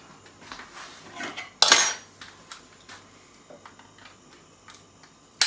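Metal cookware and utensils being handled: a loud clatter about one and a half seconds in, small clicks and taps, and a sharp knock near the end.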